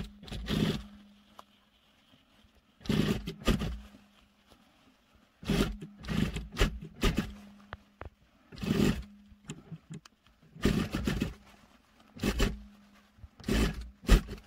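SunStar industrial sewing machine stitching in about seven short runs of half a second to a second and a half, with its motor humming steadily in the pauses between runs. It is topstitching a pleated skirt waistband, pressing the pleats flat.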